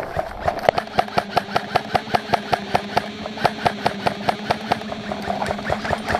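A fast, even run of sharp clicks, about five a second, over a steady low hum, thinning out and growing irregular about five seconds in.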